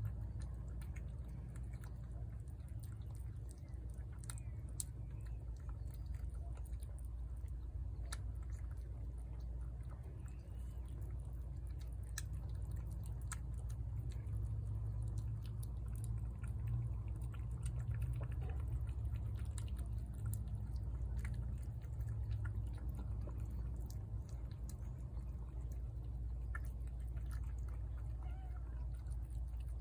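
A cat eating wet cat food from a plate: a steady run of small chewing and licking clicks, over a low steady rumble.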